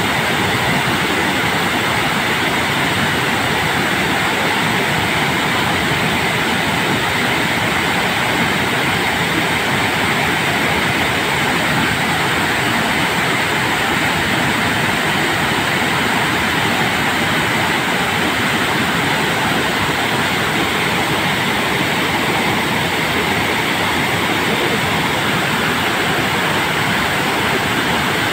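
Water released through open dam spillway gates, pouring down the masonry spillway face: a loud, steady rush with no let-up.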